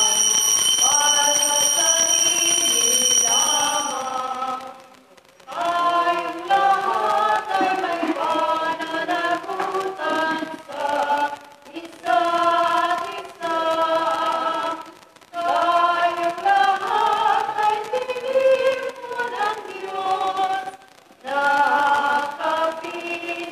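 Church choir singing a hymn in held phrases with short pauses between them: the closing hymn right after the dismissal of the Mass. A steady high ringing tone sounds over the singing for the first four seconds, then stops.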